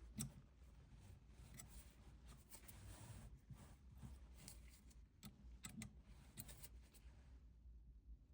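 Near silence, with faint scattered clicks and light scrapes from handling during an end-mill change on a small CNC mill.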